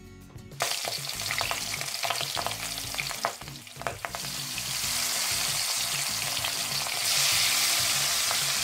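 Marinated chicken pieces sizzling in hot oil in a kadai, with metal tongs clicking against the pan as the pieces are laid in. The sizzle starts suddenly about half a second in and grows louder in two steps as more pieces go in, loudest near the end.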